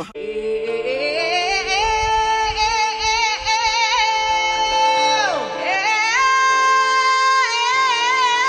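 Music with a sung melody, starting abruptly: long held notes with vibrato and a sliding drop in pitch about five seconds in.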